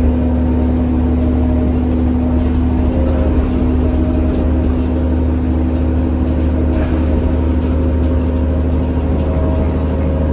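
Diesel bus heard from inside the cabin: the 2000 New Flyer D40LF's Cummins ISL inline-six engine and Allison B400R transmission running steadily. There is a deep rumble with a steady hum over it.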